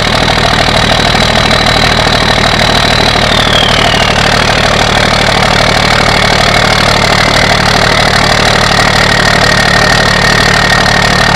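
An engine idling steadily and loudly, with a high whine that slides down in pitch about three to four seconds in and then holds at the lower pitch.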